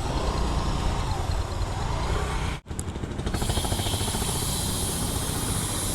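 Motorcycle on the move: a steady rumble of engine and wind on the microphone. About two and a half seconds in it cuts out abruptly, then comes back as a steadier hiss.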